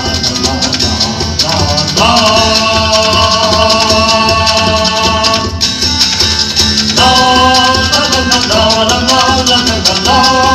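Live band music with a steady beat; long held chord notes come in about two seconds in and again about seven seconds in.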